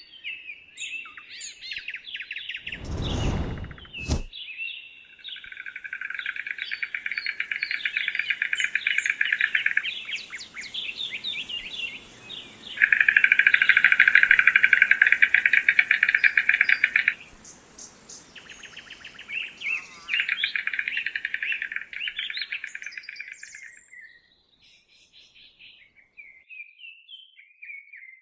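Birds calling: three long stretches of fast rattling pulses, the middle one loudest, with short falling chirps between them and a steady high hiss behind. A single low thump comes about three seconds in.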